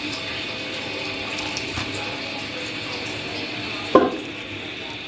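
Tap water running steadily into a large aluminium tub of water in which chopped mustard greens are being washed, with one short louder burst about four seconds in.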